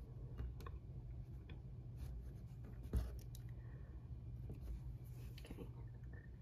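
Cross-stitching: a needle and embroidery floss drawn through evenweave fabric, faint scratching and rustling with light ticks, over a low steady hum. A single soft knock about three seconds in is the loudest sound.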